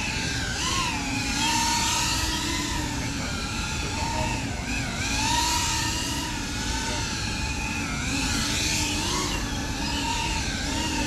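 GEPRC CineLog35 ducted cinewhoop quadcopter's motors and propellers whining, the pitch rising and falling over and over with the pilot's throttle changes, over a steady low rumble.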